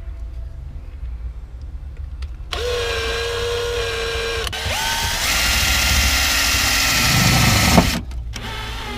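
Power drill running while a fuse holder is fixed in place. The motor whine starts about two and a half seconds in, steps up in pitch twice, and stops sharply near the end.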